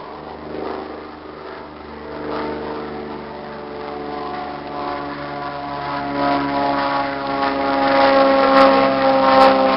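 An engine droning at a fairly steady pitch, growing steadily louder as it comes closer.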